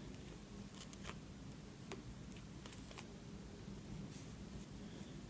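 Faint rustling and a few soft scattered ticks of cotton thread being handled, pulled from the ball and worked with a crochet hook on a yarn-wrapped embroidery hoop, over a low steady hum.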